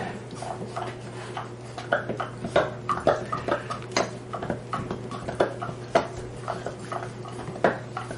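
Golden retriever puppies play-fighting: an irregular run of scuffles, knocks and clicks, some with short growl-like sounds, over a steady low hum.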